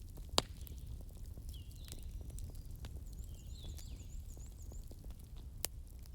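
Wood fire crackling in a fireplace: a low steady rumble with scattered small crackles, and two sharp pops, one about half a second in and one near the end.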